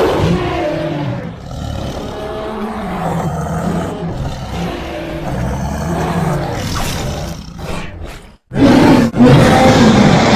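Drawn-out roaring and growling with a wavering pitch. It cuts out briefly about eight seconds in, then comes back louder.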